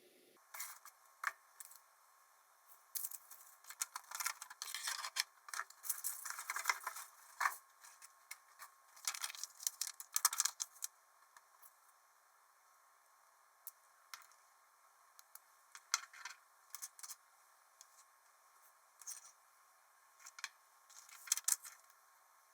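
Hands handling packaging and small microphone parts: irregular clicks, taps and rustling in bunches with short pauses, busiest in the first half and sparser later.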